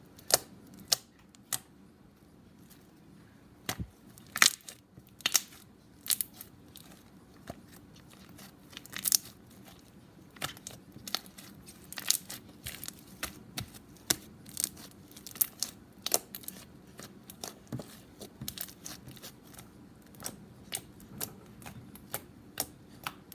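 Bubbly slime being squished and stretched by hand, giving many sharp, irregular pops and clicks.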